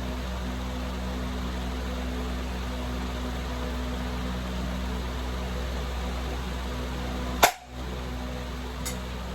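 Steady low hum and hiss of room noise, broken by one sharp click about seven and a half seconds in, after which the sound drops out briefly; two faint ticks follow.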